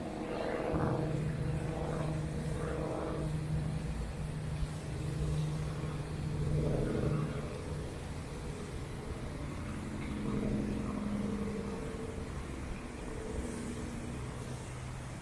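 Road traffic: motor vehicle engines passing, their drone rising and falling over the first several seconds, with another vehicle passing about ten seconds in, over a steady city hum.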